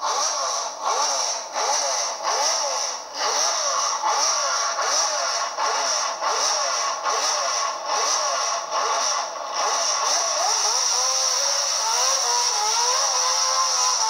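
Alfa Romeo 179 Formula One car's 3-litre V12 revved in quick repeated blips, the pitch rising and falling about once every two-thirds of a second. About ten seconds in, the revs climb and stay high.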